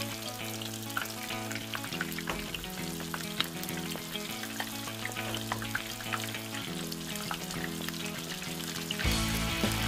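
Battered shrimp deep-frying in hot oil, sizzling steadily with many small crackling pops. Background music with held chords plays underneath.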